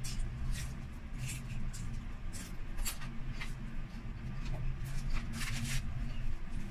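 Crunchy chewing of crispy deep-fried pork intestine (chicharon bulaklak): a string of irregular sharp crunches, close to the microphone, over a steady low hum.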